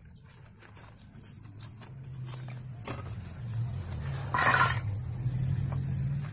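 Slate pencils tipped out of their cardboard box into a stainless steel bowl: a brief clatter of pencils against the metal about four and a half seconds in, after a few light clicks, over a low steady hum.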